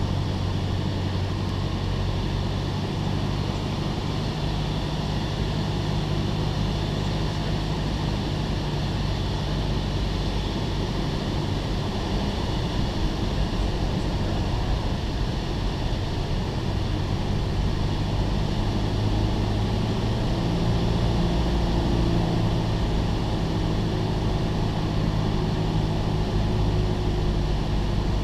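Cessna 172SP's four-cylinder Lycoming engine and propeller droning steadily, heard from inside the cockpit on final approach. About twenty seconds in, the tone shifts and the drone grows slightly louder.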